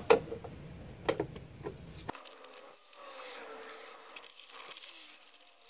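A few light clicks and knocks of a hand tool working the bolts of a scooter's variator cover. About two seconds in the low background drops away, leaving a faint wavering tone.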